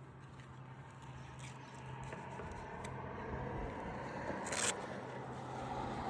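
Scraping and rustling of asphalt shingles as a roofing nail is worked loose from under them, with one short sharp scrape about four and a half seconds in. A steady low hum runs underneath.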